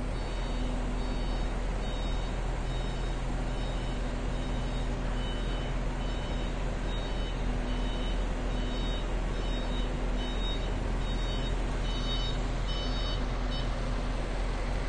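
Truck crane's diesel engine running steadily while a high electronic warning beeper sounds over and over, about one and a half beeps a second, and stops near the end; the beeping goes with the boom and hook being worked.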